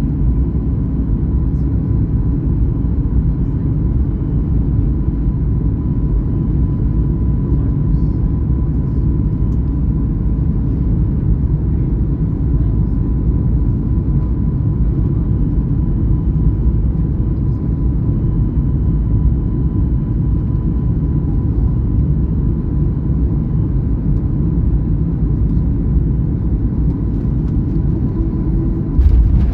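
Airliner cabin noise: a steady low rumble of jet engines and airflow with a thin steady whine, broken by a sudden louder jolt near the end.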